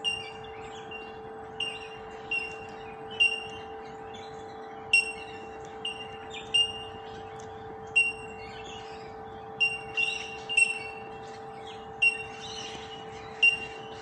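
Bell miners (bellbirds) calling: short, high, ringing single 'tink' notes, repeated irregularly about once or twice a second by several birds.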